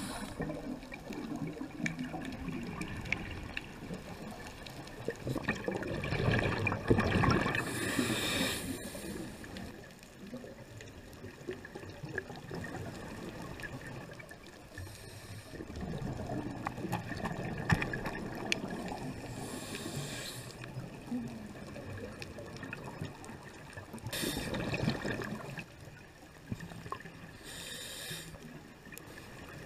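Scuba regulator breathing underwater: exhaled bubbles gurgle past every few seconds, each breath paired with a short hiss.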